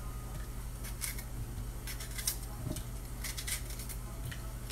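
Green bell pepper being cut and broken apart by hand over a plastic blender cup: scattered crisp snaps and small clicks, over a steady low hum.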